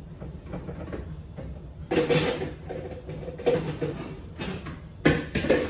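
Pots and pans clattering and knocking together as someone rummages through a lower kitchen cabinet. There is a loud metallic clank about two seconds in that rings briefly, more clanking after it, and two sharp knocks near the end.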